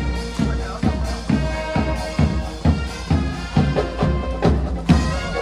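Marching band playing: held melody notes over a steady drum beat of a little over two strikes a second.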